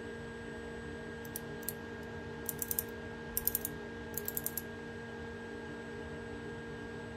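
Micrometer ratchet stop clicking in four quick runs of two to five sharp clicks as the spindle is closed onto a turned metal part: the ratchet slipping once measuring pressure is reached. A steady hum runs underneath.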